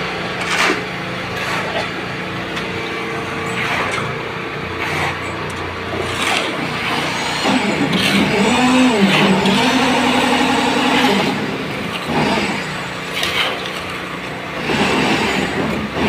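Engine running at a building construction site, its pitch dipping and rising a few times, with scattered knocks.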